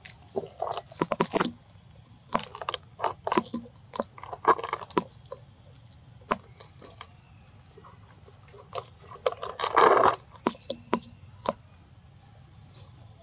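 Macaques eating: a run of short, irregular crunches and clicks, with a louder, longer rustling crunch about ten seconds in.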